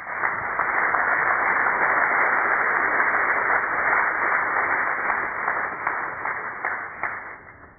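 Audience applauding: a dense patter of clapping that starts suddenly, holds steady and dies away near the end.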